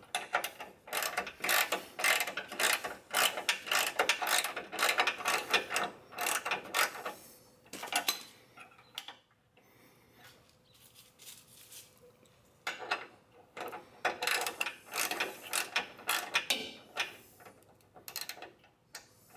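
Socket ratchet wrench clicking as it loosens the 12 mm bolt holding a car horn's bracket. The clicking comes in two runs of rapid strokes, with a pause of about five seconds in the middle.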